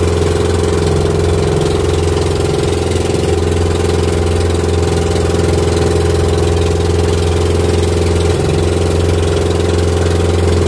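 Engine of a motorized outrigger fishing boat (bangka) running steadily while under way, at an even pitch and level throughout.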